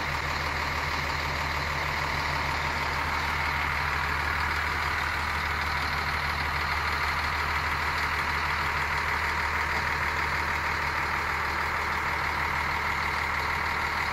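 Scania K340 bus's diesel engine idling steadily, heard up close in its open rear engine bay.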